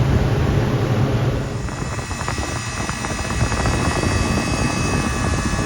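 Walk-in freezer's refrigeration condensing unit running after repair: a steady hum from the condenser fan and compressor, with a faint high whine joining about a second and a half in.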